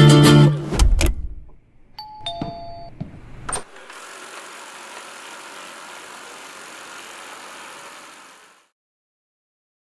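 A short falling two-note electronic chime, then a click and a steady rushing noise for about five seconds that cuts off suddenly: a robot vacuum cleaner beeping as it starts and its suction motor running.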